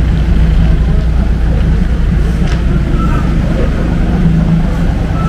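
Steady low rumble of a vehicle engine running close by.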